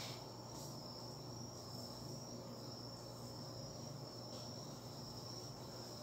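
Faint room tone: a steady high-pitched trill over a low hum.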